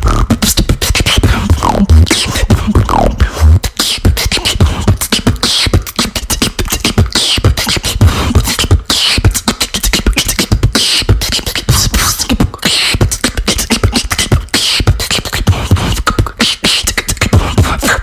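Female beatboxer performing solo: fast, dense vocal percussion of deep kick drums, clicks and snares, with repeated sweeping pitch effects voiced over the beat.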